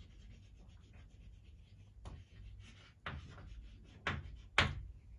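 Writing by hand on a board: a run of short, faint scratching strokes with a few sharper taps, the sharpest near the end.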